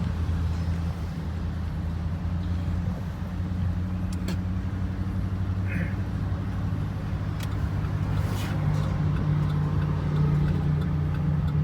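Car engine and road noise heard from inside the cabin while driving, a steady low drone that grows a little louder in the last few seconds.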